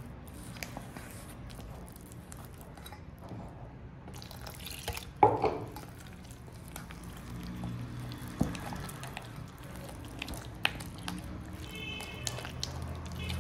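Pink silicone spatula stirring and mashing a thick, wet flour-and-water dough in a stainless steel bowl: sticky squelching with scattered light clicks. There is one louder knock about five seconds in.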